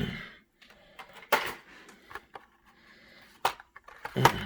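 Blister-packed diecast toy cars being handled: a few sharp plastic clicks and crinkles with light rustling between them.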